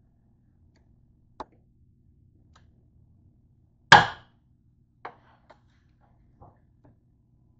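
Hard kitchen knocks and clatter as things are handled around a stovetop pan. There is one loud sharp clack about four seconds in, with a smaller knock before it and a few light taps after.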